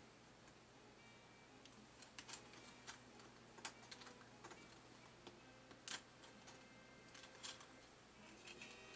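Faint scattered clicks and taps of 3D-printed plastic gear parts being handled and fitted together, the loudest about six seconds in.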